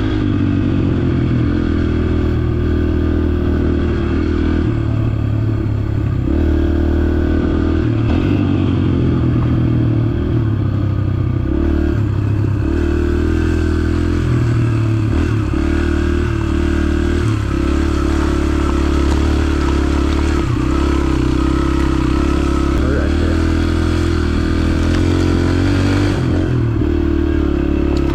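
Yamaha TT-R125 dirt bike's small single-cylinder four-stroke engine running on a trail ride, its note rising and falling repeatedly with throttle and gear changes.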